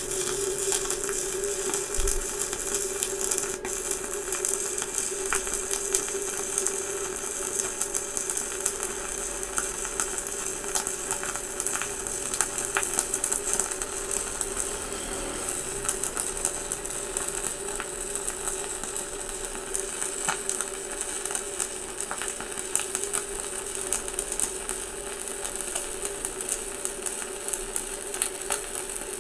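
Stick-welding arc from a KOBE 250PRO inverter welder, burning a 4 mm electrode at about 250 amps: a steady, even crackle with a steady hum under it.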